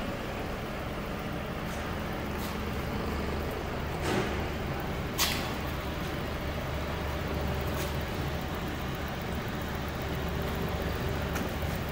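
Industrial batch oven's blower running, a steady low machine hum, with a couple of short sharp clicks about four and five seconds in.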